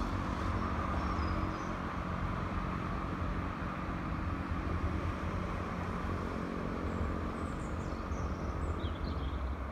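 Renault Clio's 0.9 TCe three-cylinder turbo petrol engine idling steadily, heard with the bonnet open.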